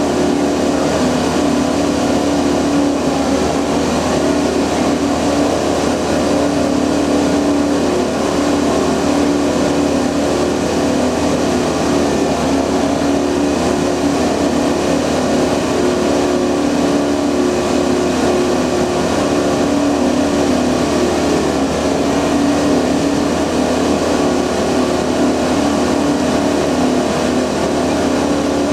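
A multiple tie tamper, a track ballast tamping machine, running steadily: a continuous, loud mechanical noise from its engine and hydraulic tamping unit, with a steady hum underneath.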